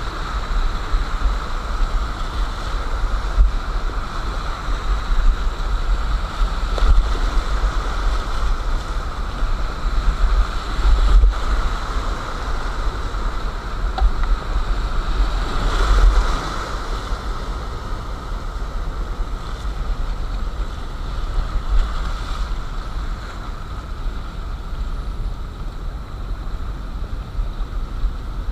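Whitewater rapids of a mountain river rushing steadily, with a deep rumble of wind buffeting the microphone.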